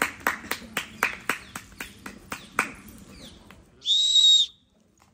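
Group of people clapping in rhythm, about four claps a second, thinning out and fading over the first three seconds. About four seconds in comes the loudest sound, a short, steady, high whistle-like beep lasting about half a second.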